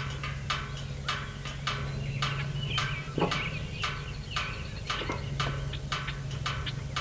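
Portable band sawmill running, its engine a steady hum under a regular pulsing hiss, about two pulses a second, as the blade cuts through a log.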